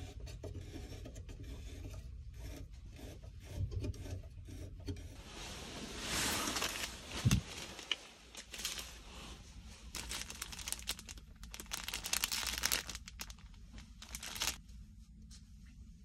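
Bouts of plastic rubbing and rustling as small items are handled, loudest about six seconds in and from about ten to fourteen seconds in. Under it runs a low steady drone of the ferry cabin.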